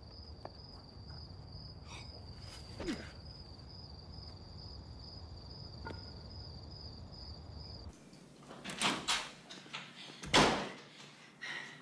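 Crickets chirping steadily over a low rumble of night air. About eight seconds in this stops, and a door is handled with a few knocks and then bangs shut near the end, the loudest sound.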